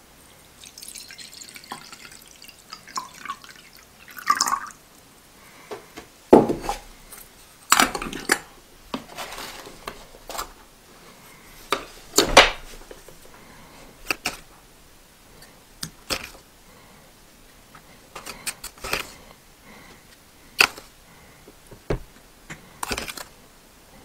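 Water poured into the aluminium boiler of a moka pot for the first few seconds, followed by a string of sharp knocks and clinks as the pot's metal parts are handled and ground coffee is spooned into the filter basket with a teaspoon.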